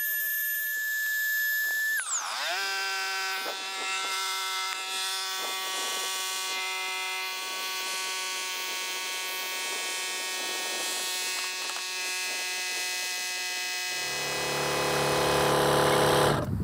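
Electric air pump inflating an inflatable boat's high-pressure air floor, which it is filling to 0.7 bar. Its whine drops sharply in pitch about two seconds in and then runs as a steady hum. Near the end a lower tone joins and it grows louder, then it cuts off suddenly as the floor is done.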